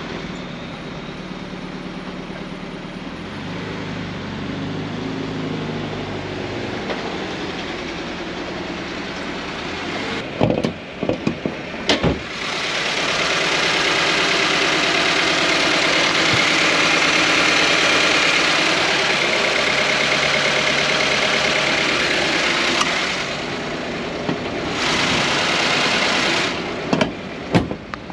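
Subaru BRZ's flat-four boxer engine idling steadily, heard up close over the open engine bay for much of it and louder from about halfway in. It runs smoothly with no knocking. A few sharp clicks come about ten seconds in and again near the end.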